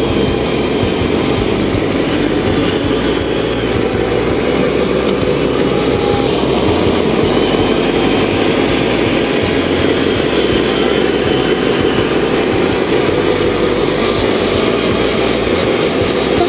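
Radio-controlled model truck's small electric motor and gearbox running steadily with a continuous whirring drone.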